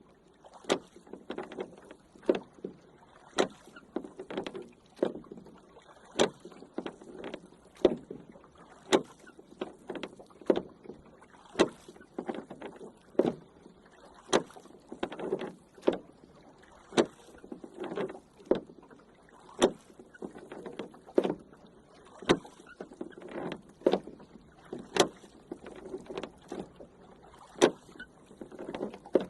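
A rowing boat under oars: sharp wooden knocks and splashing water come in a steady stroke rhythm, about one stroke every second and a half.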